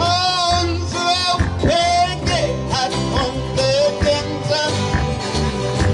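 Live band playing a song: guitars, bass and drums, with a wavering lead melody with vibrato over them.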